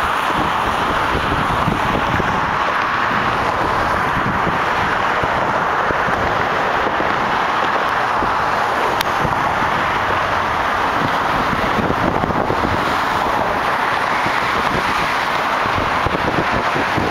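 Steady noise of car traffic crossing the Golden Gate Bridge, a constant rush of tyres on the roadway, with wind buffeting the microphone.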